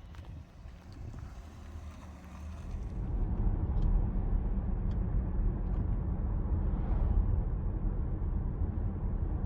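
Driving noise inside the cabin of a Peugeot 408 1.2 PureTech: a steady low rumble of road and engine noise that rises sharply about three seconds in and then holds. A few faint clicks come before the rise.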